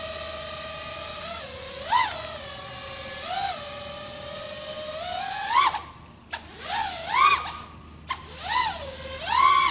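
FPV racing quad's four iFlight XING 2207 1800kv motors and propellers, on a 6S battery, whining steadily in flight, with short rising throttle blips about two and three and a half seconds in. From about five and a half seconds the pitch swoops sharply up and down several times, with brief cut-outs between the surges, as the throttle is punched and chopped.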